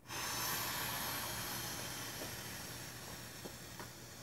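A long breath blown by mouth into an inflatable bird toy's valve: a steady rushing hiss that starts abruptly and slowly fades, with a few faint ticks in the second half.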